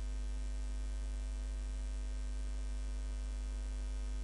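Steady electrical mains hum in the recording, a low drone with a faint buzz of higher steady tones above it, unchanging throughout.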